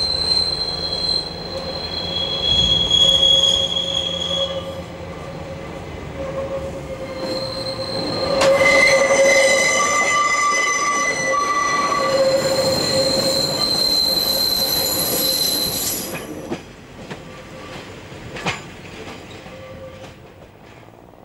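Two-car Pacer railbus moving along the track with its wheels squealing on the rails: several shrill, steady tones that are loudest around the middle, then fade away. A couple of short knocks come near the end.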